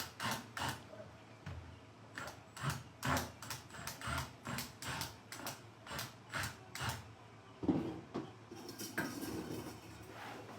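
Hand work on a screwed-shut, boarded-up door: a run of sharp metallic clicks and knocks, about two a second, with a louder knock and a short scrape near the end.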